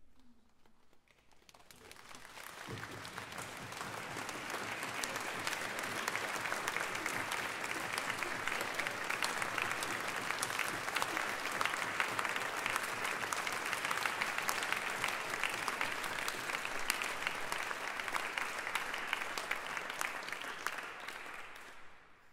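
Audience applauding: a dense patter of many hands clapping that swells over the first few seconds, holds steady, and dies away near the end.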